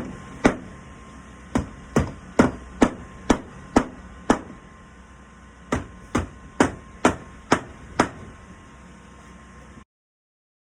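Hammer striking nails to fix a hand-forged iron hinge to a wooden door. Sharp blows come about two a second in two runs of six or seven with a short pause between, and the sound cuts off abruptly near the end.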